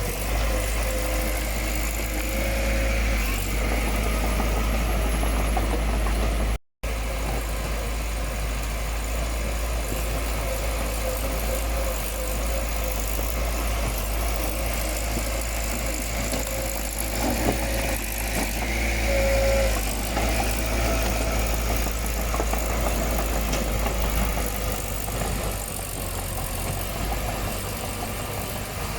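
Heavy diesel engine of earthmoving machinery running steadily, with a low rumble and a brief cut to silence about seven seconds in.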